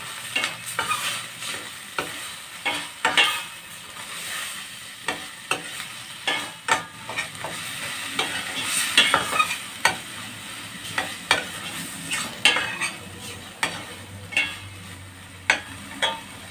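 A large metal spoon scraping and clinking against a stainless steel pan in irregular strokes while stirring sautéed shrimp paste (alamang), which sizzles underneath.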